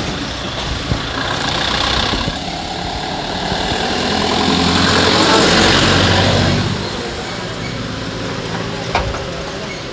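A small box truck driving slowly past close by: its engine and tyres swell to loudest a few seconds in, then fade away.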